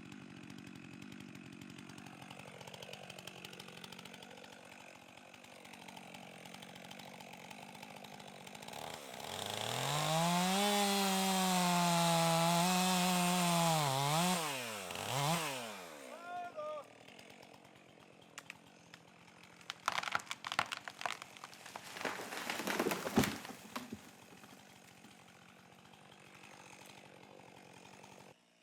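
Two-stroke chainsaw idling, then run up to full throttle for about five seconds of cutting, blipped and let back down to idle. After that comes a burst of sharp cracking and crashing lasting a few seconds.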